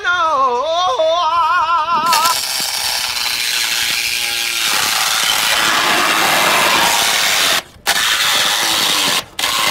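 A reciprocating saw runs with a whine that wavers and dips in pitch. About two seconds in its blade bites into the car's sheet-steel roof pillar and gives a steady, loud cutting rasp, which stops for a moment twice near the end.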